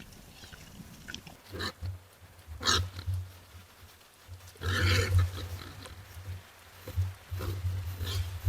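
Wild boar grunting: a series of low grunts in uneven bouts, a few of them harsher and noisier.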